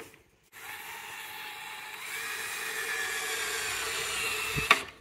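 Craftsman cordless drill-driver running steadily for about four seconds, driving a screw through plywood, its whine growing slightly louder as it goes. There is a sharp click just before it starts and another as it stops.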